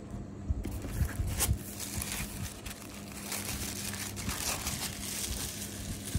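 A thin white wrapper rustling and crinkling as it is pulled off a palm rest, after a few soft knocks from handling in the first second and a half.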